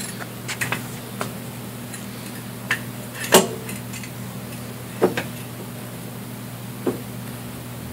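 Irregular metallic clinks and knocks as a car scissor jack and its metal crank handle are handled and fitted under the car, with the loudest clank about three and a half seconds in. A steady low hum runs underneath.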